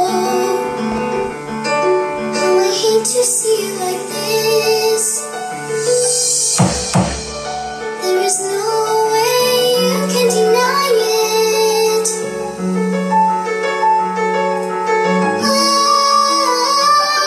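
A song with a woman singing over keyboard backing, with a short sweeping effect about six and a half seconds in.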